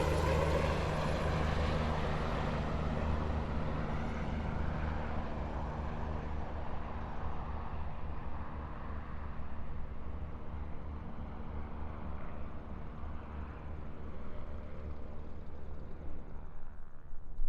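Helicopter flying away after take-off, its rotor and turbine sound slowly fading and growing duller until only a low steady hum is left. A brief knock near the end.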